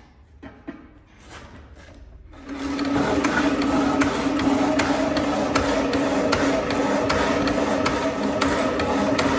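Power tool cutting a metal tube sleeve: after a few quieter knocks, the machine starts about two and a half seconds in and runs steadily, with a rapid, irregular clicking of the cut.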